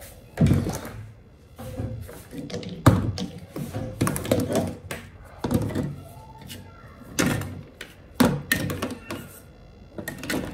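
Dusty plastic parts of a disassembled Dyson V8 stick vacuum being picked up and dropped into a plastic basin: a string of irregular knocks and clatters, plastic on plastic, every second or so.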